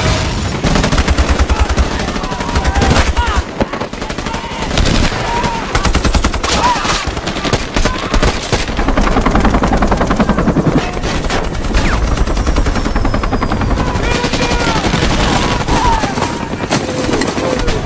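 Film battle sound: sustained automatic gunfire from rifles and machine guns, a dense run of rapid shots over a deep rumble.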